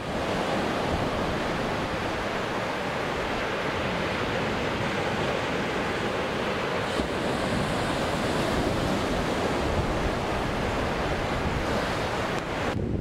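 Small surf washing up a sandy beach, a steady rush of breaking waves, with wind buffeting the microphone.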